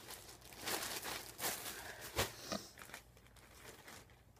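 Clothing being handled: irregular rustling and crinkling of fabric as garments are put down and picked up, with a soft knock about two seconds in.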